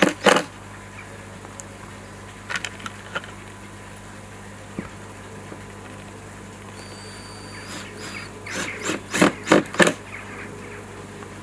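Screwdriver working screws into a plastic pond skimmer faceplate, heard as clusters of sharp clicks and scrapes: once at the start, a few a little later, and a longer run near the end. A steady low hum runs underneath.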